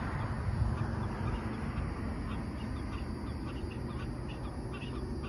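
Waterbirds calling at the lakeside, a quick series of short repeated notes beginning about two seconds in, over a steady low rumble of wind.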